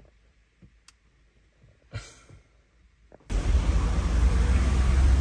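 Quiet car interior with a few faint clicks and handling noises, then an abrupt cut about three seconds in to loud, steady outdoor background noise with a strong low rumble and hiss.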